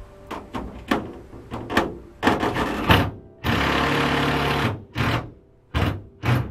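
Power drill driving screws into clear corrugated roof panels, run in short bursts with one steady run of about a second in the middle and two more short bursts near the end.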